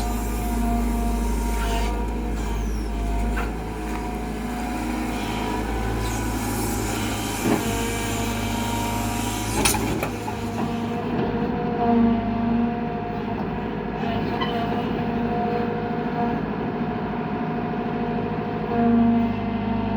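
Kobelco Yutani SK120 excavator's diesel engine running steadily, with a few sharp knocks, the loudest about ten seconds in.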